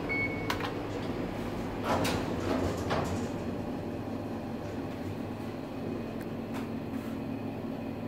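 Hitachi elevator car: a short beep and a couple of clicks at the panel, then the car doors sliding shut about two to three seconds in. After that comes the steady hum of the car as it starts down.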